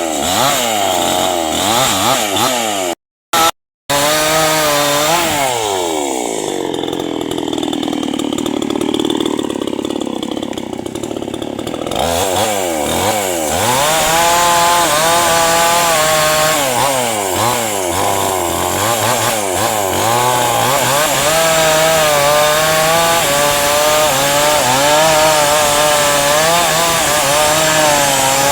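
Two-stroke chainsaw cutting into a hard, dense acacia trunk, its engine pitch rising and falling as the chain bites. For several seconds in the middle the note sags lower under load, then climbs back to a wavering high rev. The sound cuts out briefly twice about three seconds in.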